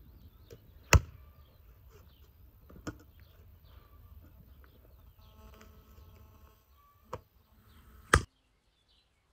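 Chopping goat meat and bone on a tree-stump block: four sharp chops, the loudest about a second in and near the end, with two softer ones between.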